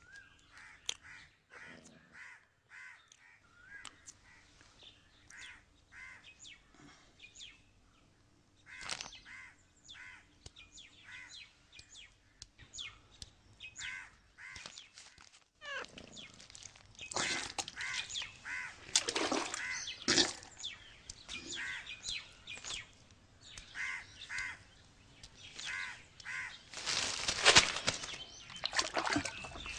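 Crows cawing over and over, sparse at first, then louder and more frequent from about halfway through.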